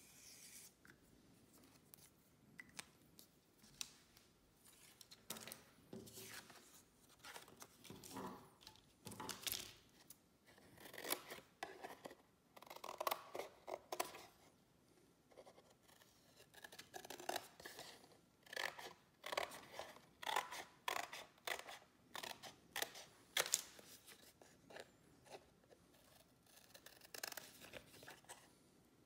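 Scissors cutting through thin cardboard: a long run of short, irregular snips.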